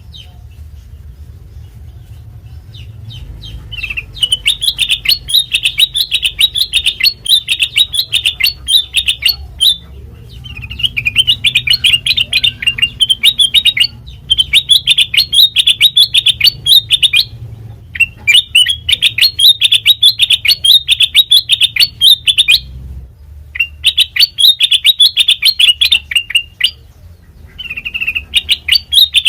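Kutilang mas bulbul singing long phrases of rapid, high chirps, each phrase a few seconds long with brief pauses between, starting a few seconds in.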